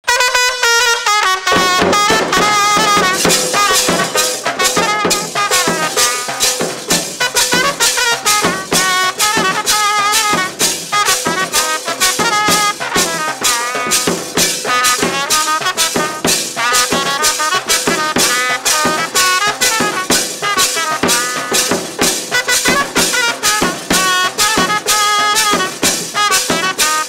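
Festive band music: a melody over a fast, steady drum beat, with the fuller drum sound coming in about a second and a half in.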